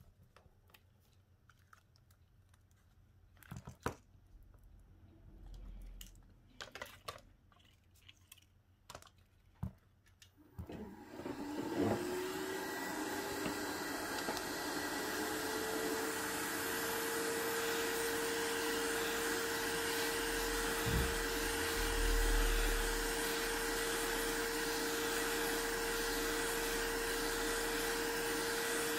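Faint clicks and taps of small tools for about ten seconds, then an electric hot-air blower switches on, its motor rising in pitch over a few seconds and then running steadily with a loud airy hiss.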